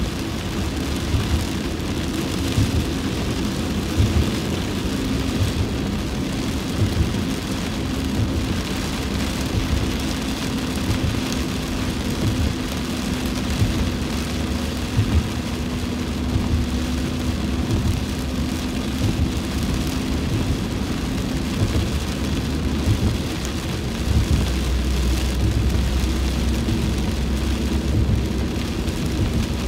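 Heavy rain falling on a car's windshield and roof, heard from inside the cabin while driving, over a steady low hum of the engine and tyres on the wet road.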